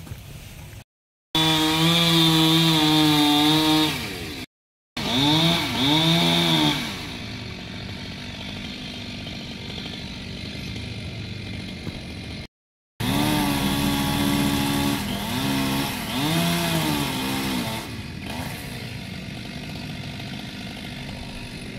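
Two-stroke chainsaw held at full throttle, then blipped twice so its pitch rises and falls, then dropping back to a low idle. The pattern happens twice.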